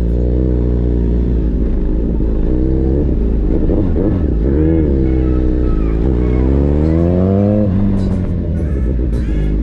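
Motorcycle engine pulling away with a few throttle changes, then accelerating in one gear, its pitch climbing steadily and dropping suddenly near the end at a gear change.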